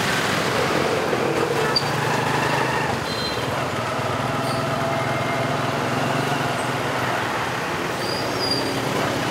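Dense motorbike and car street traffic heard while riding along in it, with a steady engine drone underneath.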